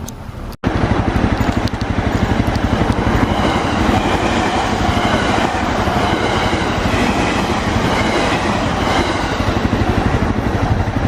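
A JR train passing a level crossing at close range: a loud, steady rumble of wheels on rail with a rapid clatter. It starts suddenly about half a second in.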